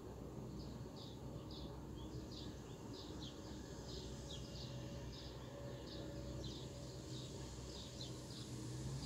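Faint chirping from a small bird: short, high chirps repeated irregularly, two or three a second, over a low steady hum.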